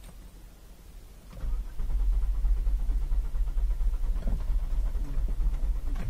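Holden Captiva V6 engine being cranked by the starter motor, turning over with a fast pulsing rumble from about a second and a half in but not catching. This is the fault being shown: it cranks but will not start.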